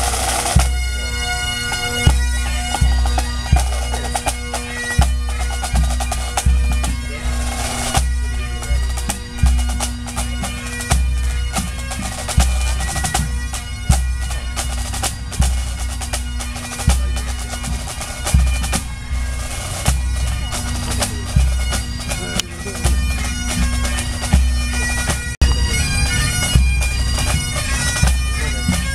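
Full pipe band playing: Great Highland bagpipes sounding a tune over their steady drones, with snare drums and a bass drum beating time on a regular pulse.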